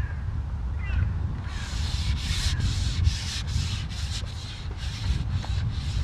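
Rhythmic rubbing or scraping strokes, about two a second, starting about a second and a half in, over a low wind rumble on the microphone.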